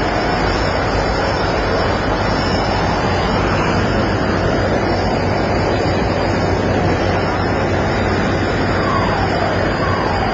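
Steady wind and sea noise over the low, even drone of a vessel's engines at sea. A few short falling tones come through near the end.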